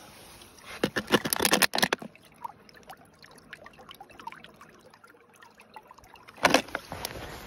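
Plastic water bottle held under the surface of a shallow icy brook, filling with water that gurgles and bubbles into it. A burst of crackling clicks comes about a second in, and a sharp knock about six and a half seconds in.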